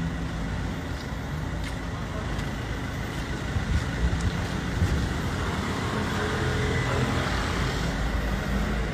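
A motor vehicle's engine running close by amid steady street traffic noise, with a low rumble that grows slightly louder in the second half.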